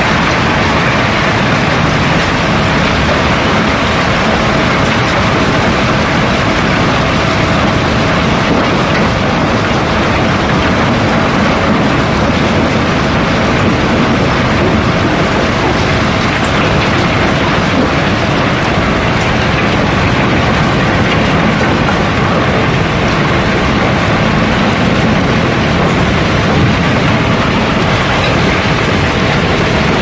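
Rounded river cobblestones sliding down a heaped cargo and pouring into the conveyor trough of a barge's hold: a steady, dense clatter of rock flow during unloading.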